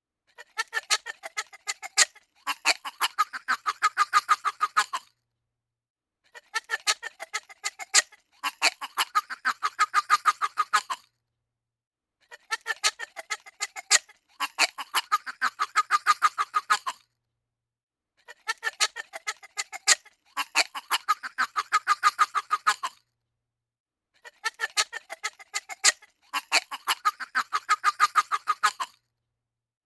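A weird, fast squeak sound effect: a rapid run of squeaks, a brief break, then a longer run of about two and a half seconds. The pair repeats identically five times, about six seconds apart.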